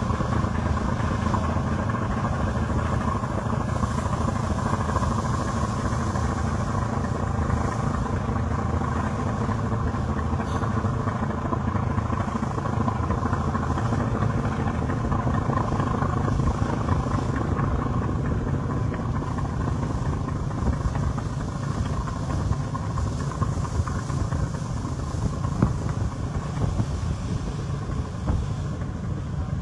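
Steady low drone of a passenger river launch's engine running under way, with the rush of water along the hull.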